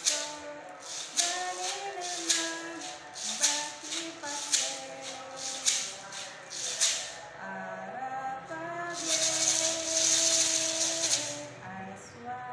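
Homemade maraca made from a plastic bottle of mung beans, shaken in rhythm about twice a second. It switches to a continuous rapid shake around two-thirds of the way through. A melody runs over it.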